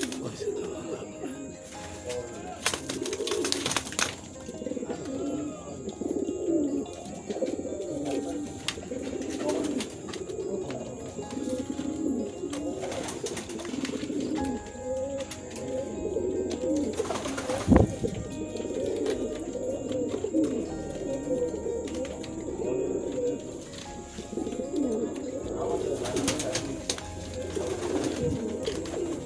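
Several Kaldom domestic pigeons cooing without a break in low, overlapping coos. There is one sharp knock about 18 seconds in.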